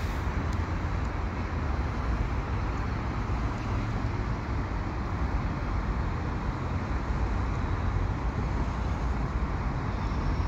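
Steady highway traffic noise over a deep low rumble, with no distinct events.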